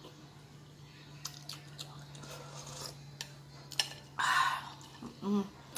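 Mouth-close eating of an iced dessert: soft chewing and faint clicks of a metal spoon against ice and a glass bowl, with a louder half-second slurp a little after four seconds in.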